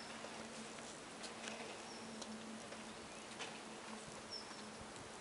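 Faint hiss with a bird's short, high chirp repeating about every two seconds, and a few light clicks.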